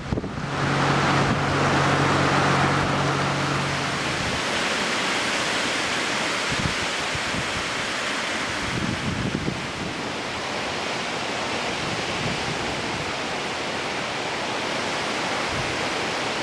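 Wind storm: a loud, steady rushing of wind. A low steady hum sits under it for the first few seconds and then fades out.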